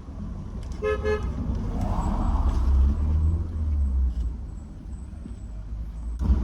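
A car horn gives one short toot about a second in, over a steady low vehicle rumble.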